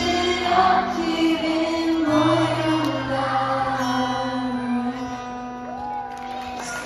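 Live pop music from a band on stage: acoustic guitar, drums and a sung melody, heard from the audience seats of a large concert hall. Sustained notes carry on throughout, with a held note that slides near the end.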